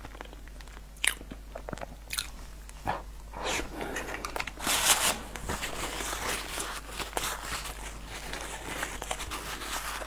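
Close-miked wet chewing and lip-smacking of a person eating soft cake, with frequent sharp mouth clicks. Louder rustling about halfway through, as a paper napkin is handled.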